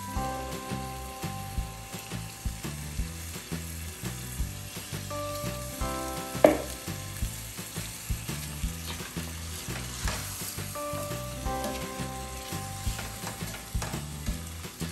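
Pilau rice sizzling in the pot as it is stirred into the spiced base before the water goes in, with repeated scrapes and knocks against the pot. The loudest knock comes about six and a half seconds in.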